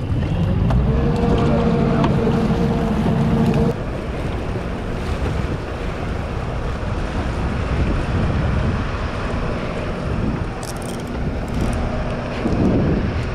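Three Suzuki outboard motors running with a steady drone that drops away abruptly about four seconds in. Then water rushes past the hull and wind buffets the microphone.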